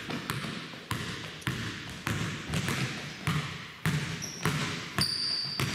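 Basketball dribbled on a hardwood gym floor, a steady beat of a little under two bounces a second, each bounce echoing around the gym. Near the end come a couple of short, high sneaker squeaks on the wood.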